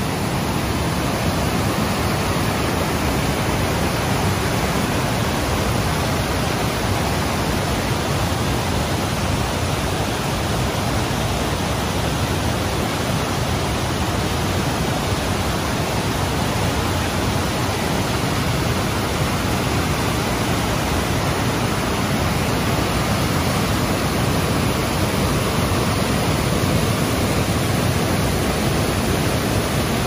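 White water pouring down a river waterfall and over rapids: a loud, steady rush of falling water.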